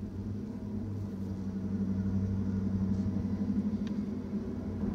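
BNSF intermodal freight train rolling past: a steady low rumble with a deep hum, growing louder about two seconds in.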